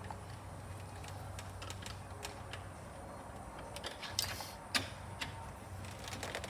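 Scattered light clicks and taps over a steady low hum, with two sharper clicks about four and five seconds in, the first followed by a short hiss.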